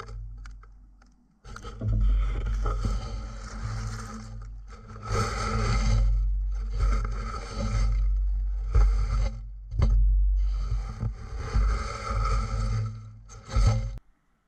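Hollowing tool cutting the inside of a spinning segmented pear-wood vase on a wood lathe, heard from inside the hollow vessel: a scraping cut in repeated passes of one to three seconds over the lathe's steady low rumble, stopping abruptly near the end.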